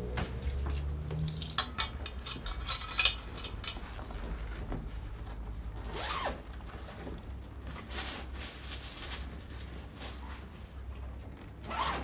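A suitcase zip pulled open in a run of short rasps, then more scraping and rasping as the case's contents are searched.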